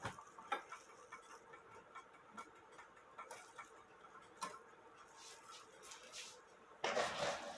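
Movement of an 1880 Fleig hunter's cuckoo clock ticking faintly while it runs without its pendulum. A louder rustling noise comes near the end.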